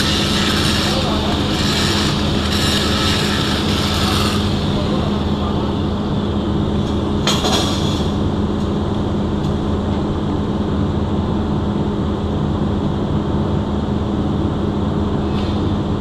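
Steady low hum of welding-shop machinery. Over it, a loud hiss of metalwork on the pipeline test joint as sparks fly for the first four seconds or so, and a shorter burst about seven seconds in.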